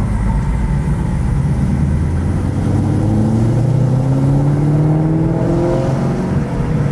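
Supercharged 6.2-litre V8 of a manual Camaro ZL1 accelerating under load, heard from inside the cabin. The engine note rises steadily in pitch for several seconds, then drops off briefly near the end at a gear change.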